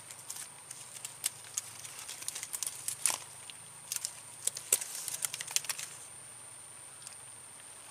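Light, irregular clicks and crackles of dry twigs and leaf litter being disturbed as a hand works a fishing rod and line over a hole in the mud. The crackling stops about six seconds in.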